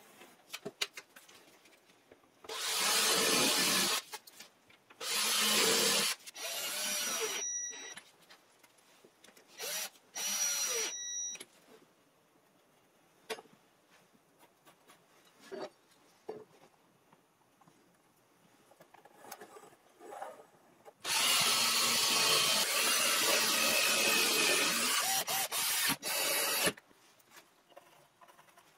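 Cordless drill running into wood in four short bursts, some with a high motor whine, then one longer run of about five seconds near the end, with light clicks of handling between.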